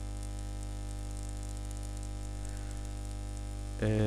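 Steady electrical mains hum with a buzz of overtones, under a faint hiss and crackle. A man's voice comes in just before the end.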